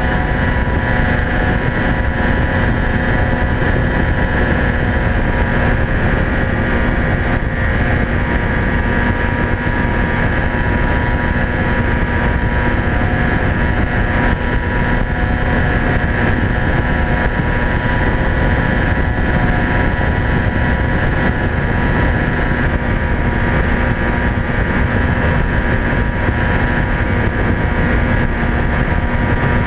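Polaris snowmobile engine running at a steady cruising speed, its note holding an even pitch over a constant low rumble, heard from a camera mounted on the hood.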